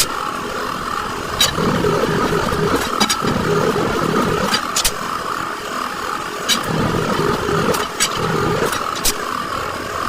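Leaf-spring repair work: about ten sharp knocks at uneven intervals over a steady mechanical hum, with a low rumble swelling and fading every second or two.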